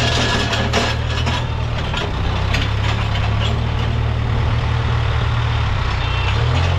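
Case backhoe loader's diesel engine running steadily, with scattered knocks and clatter in the first couple of seconds and again a little later.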